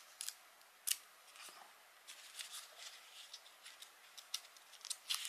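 Pages of a small paper instruction booklet being leafed through by hand: faint rustling with a few sharp flicks of paper.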